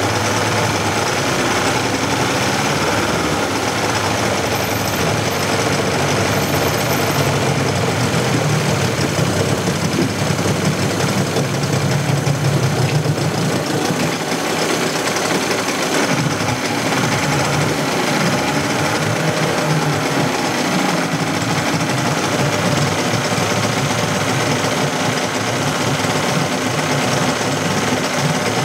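Suzuki DT-25 twin-cylinder two-stroke outboard running steadily, its engine speed rising and falling at times through the middle and later part.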